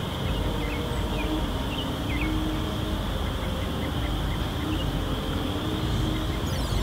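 Small GEPRC CineLog25 cinewhoop drone's motors and propellers buzzing steadily in flight, with birds chirping over it.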